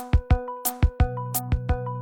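Background music with a steady electronic beat of kick drums and short high strikes over held tones, a sustained bass line coming in about a second in.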